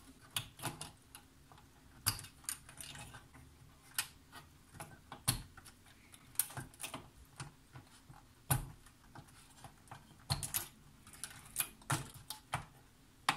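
Scattered sharp clicks and light handling noise from the tape-head cable connectors of a Tascam Portastudio 424 Mk II being worked loose and unplugged from its circuit board.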